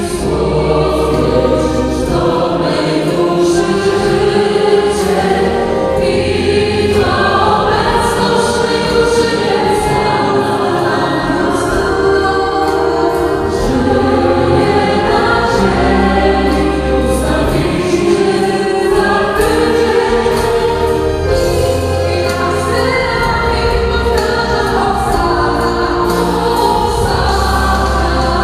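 Amplified mixed church choir singing a sacred pop song in sustained harmony, over instrumental accompaniment with long low bass notes.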